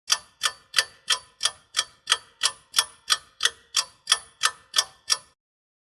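Ticking clock sound effect: sixteen even, sharp ticks, about three a second, that stop near the end. It works as a countdown giving time to translate the question before the answer.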